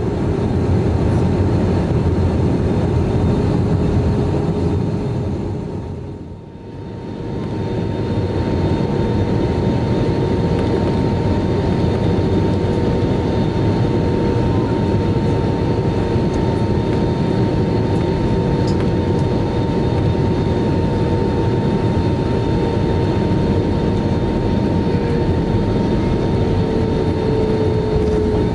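Cabin noise inside an Airbus A320 on descent and final approach: a steady rumble of engines and airflow with a steady hum over it. The sound fades out and back in about six seconds in.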